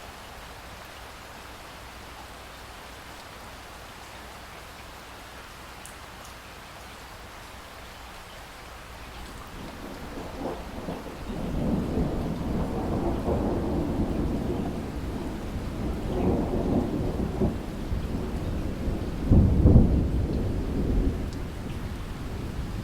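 Steady rainfall, then a long roll of thunder that builds from about ten seconds in and rumbles on, with its loudest clap about three seconds before the end.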